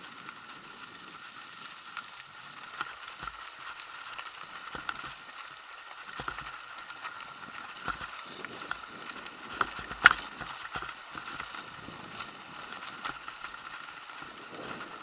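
Mountain bike rolling down a rough, stepped gravel trail: a steady crackle of tyres over loose stones with frequent knocks and rattles as the bike jolts, the sharpest knock about ten seconds in.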